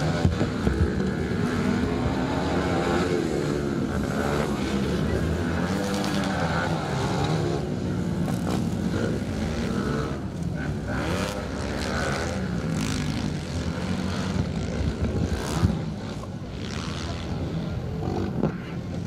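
Motocross dirt bike engines racing on a dirt track, revving up and down in pitch as the riders accelerate and back off.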